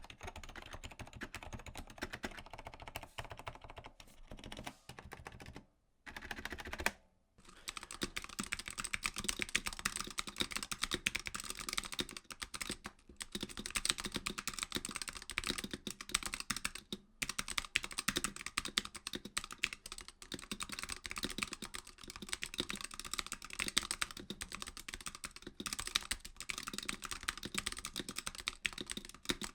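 Fast, continuous typing on a mechanical keyboard with linear switches: a dense stream of key clacks. The typing breaks off briefly about six seconds in and resumes sounding brighter, as on a different keyboard.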